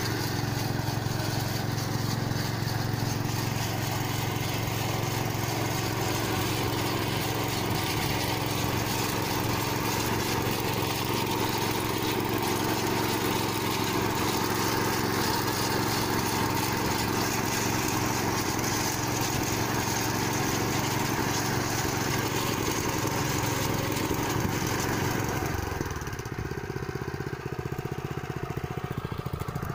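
Tractor engine running at a steady speed while it pulls a four-row corn planter. It grows a little quieter and duller a few seconds before the end.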